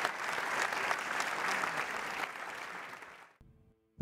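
Audience applauding at the end of a talk. The applause thins about two seconds in and is cut off abruptly near the end, leaving a faint low hum.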